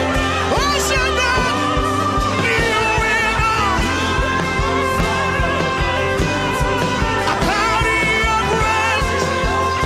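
Gospel worship song: a singer's voice over sustained bass notes and a steady beat.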